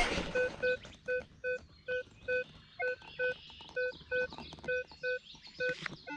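Minelab Equinox 800 metal detector giving a run of short, identical low-pitched beeps as its coil is swept over the ground, often in pairs, a bit over two a second.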